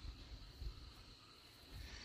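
Faint outdoor ambience: a steady high-pitched drone with soft, irregular low rumbles.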